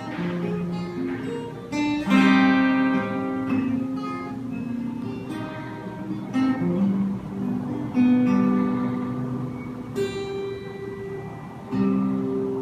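Acoustic guitar played alone, chords strummed and left to ring, with fresh strums about 2, 8 and 12 seconds in.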